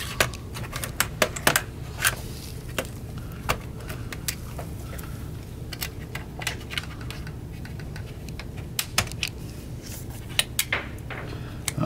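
Irregular sharp clicks and snaps of an Asus ROG Strix GL703GE laptop's plastic bottom cover being pried up along its edge with a plastic pick, crowded near the start and again near the end, over a steady low hum.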